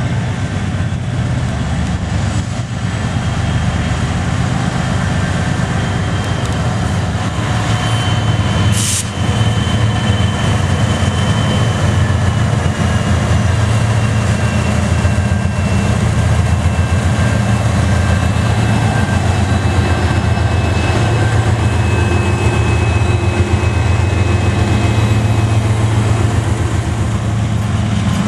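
Diesel locomotives of a CSX freight train passing close by: a steady heavy engine drone with a thin high whine that slowly falls in pitch. A brief high hiss about nine seconds in.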